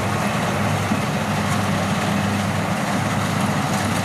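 Two Kubota rice combine harvesters (a DC60 and a DC1115) running steadily while cutting rice: a continuous low diesel engine drone with a broad mechanical rush over it.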